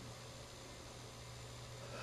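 Quiet pause between a sleeping German shorthaired pointer's snores: only a low, even hiss and a faint steady hum, rising slightly near the end as the next snore draws in.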